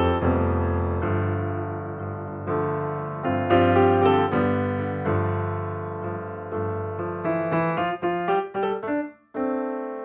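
Background piano music: slow chords and single notes that ring and fade, then a run of quicker notes, a brief break near the end, and a new held chord.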